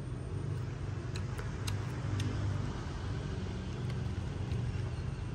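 A steady low hum with a few faint, short clicks as fried spiders are pulled apart by hand on a metal tray.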